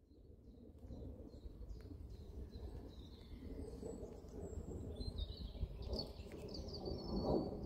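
Boeing 737-800 airliner's CFM56 engines making a low rumble that grows steadily louder as it descends on approach overhead. Small birds chirp from about three seconds in.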